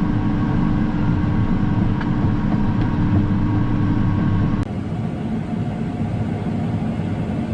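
Steady drone of a quad-track tractor's engine and machinery heard from inside the cab while running in the field. A little past halfway the drone changes suddenly to a slightly quieter, different running sound.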